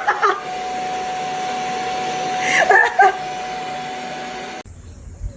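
A small electric motor whirs steadily with a held tone, broken twice by clusters of quick, high, rising-and-falling squeaky calls. The whir cuts off abruptly near the end.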